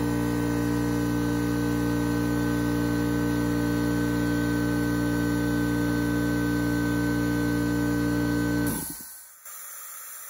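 Craftsman 5 hp oil-free air compressor (model 919.165200) running steadily as it builds tank pressure, then winding down and stopping near the end as the pressure switch cuts it off just over 100 psi. A steady hiss of escaping air follows, from a regulator that leaks.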